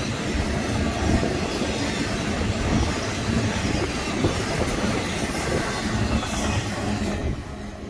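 BNSF train rolling past, a steady rumble and rattle of steel wheels on the rails that falls away about seven seconds in as the train goes by.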